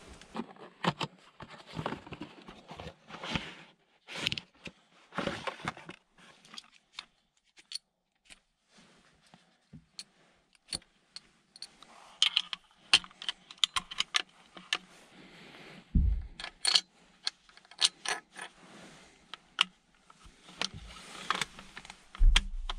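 Hands handling small metal gear: a long, irregular run of sharp metallic clicks and clinks, with a dull knock about two-thirds of the way through and another near the end.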